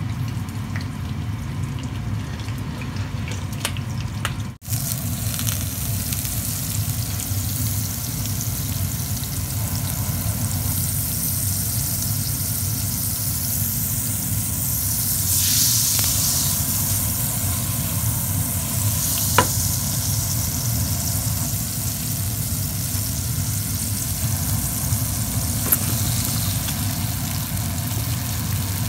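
Butter sizzling in a hot frying pan, then green beans frying in it; the sizzle swells louder about halfway through, with a sharp click a little later. A steady low hum runs underneath.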